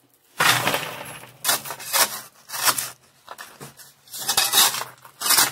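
A steel shovel scraping into gravel and rock, with dirt and stones rattling as they are tipped onto a classifier screen over a 5-gallon bucket. It comes as a series of separate scrapes and pours; the first, about half a second in, is the longest.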